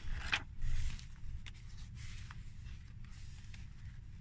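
Paper rustling as a page of a handmade paper junk journal is turned, loudest in the first second, followed by soft, scattered handling ticks as a photo card is taken out of the page's pocket. A steady low hum runs underneath.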